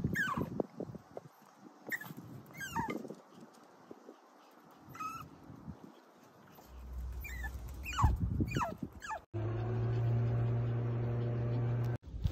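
Puppies whining in short, high cries that fall in pitch, scattered through the first nine seconds or so. Near the end a steady low hum comes in suddenly and stops just as suddenly.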